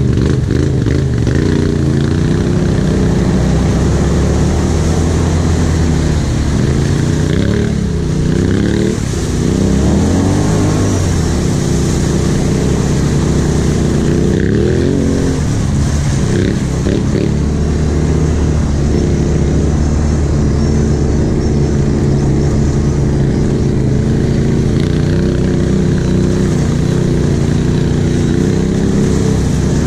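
Quad bike (ATV) engine heard from on board, running steadily under throttle. The engine note drops and rises again twice, about a third of the way in and again about halfway, as the rider eases off and opens up.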